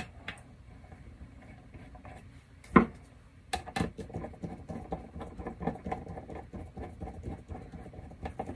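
Small metal bracket and screw being handled and fitted by hand onto a circuit-board controller: one sharp click a little under 3 seconds in, then a run of light scratchy clicks and rattles.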